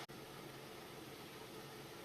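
Faint steady hiss of background noise, cut off for an instant right at the start.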